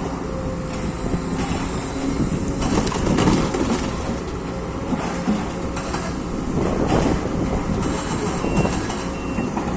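Excavator engine running steadily, with irregular metallic clanks and knocks over the hum.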